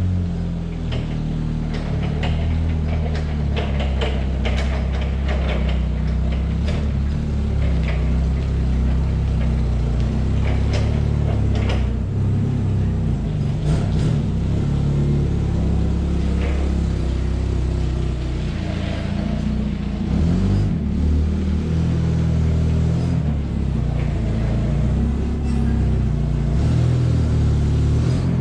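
Forklift engine running as the forklift drives up, its pitch rising and falling a little with the throttle, with a few light metallic knocks over it.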